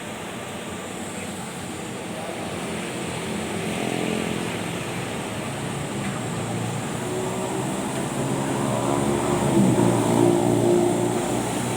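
A machine running: a steady rushing noise with a low, engine-like hum that grows louder in the second half and peaks near the end.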